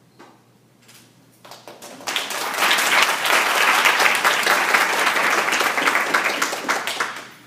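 Audience applauding: a few scattered claps that swell about two seconds in to full, steady applause, which dies away near the end.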